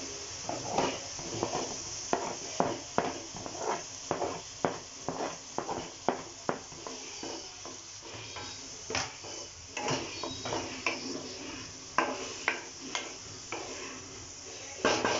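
A cooking utensil stirring and scraping freshly added tomatoes into sautéing onions in a hot pan of oil: irregular scrapes and knocks against the pan, one or two a second, over a steady sizzle.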